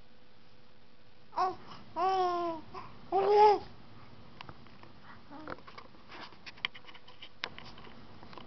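Young infant babbling: three short high-pitched coos in quick succession, the last the loudest, followed by faint clicks and rustles.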